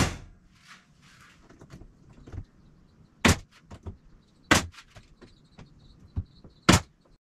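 Staple gun firing staples into the wooden edge of a boat hull: four sharp snaps about a second or more apart, with lighter clicks and handling knocks between them.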